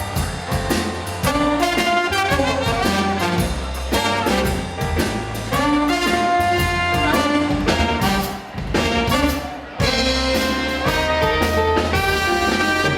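Upbeat band music led by a brass horn section (trumpet, trombone, saxophone) over a steady drum beat, briefly thinning out about ten seconds in.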